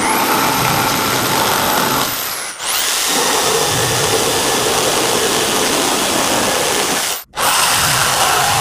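A corded electric drill drives a reciprocating saw attachment through plywood, and near the end through metal. The drill motor whines steadily over the rasp of the blade. The sound breaks off briefly twice, about two and a half and seven seconds in.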